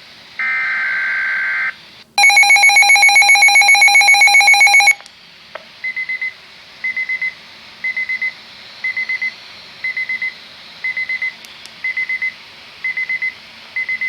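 Weather alert radio going off for a weather alert: a short steady electronic tone, then a loud alarm pulsing about seven or eight times a second for nearly three seconds, then quieter groups of short high beeps repeating about once a second.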